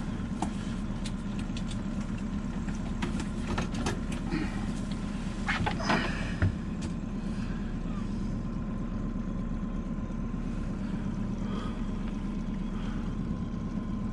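Boat outboard motor running steadily at low speed, a constant low hum, with a few scattered knocks and clatters, the biggest about six seconds in.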